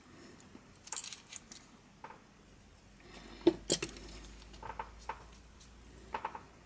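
Scattered light clicks and clinks of small plastic headphone headband parts and metal flush cutters being handled and set down on a silicone repair mat, with a sharp pair of clicks about halfway through.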